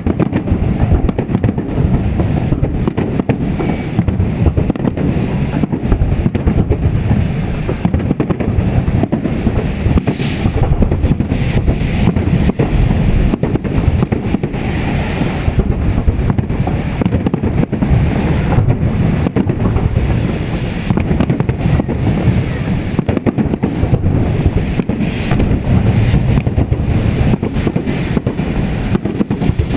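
Fireworks salute going off: a continuous barrage of bangs close together, with wind buffeting the microphone.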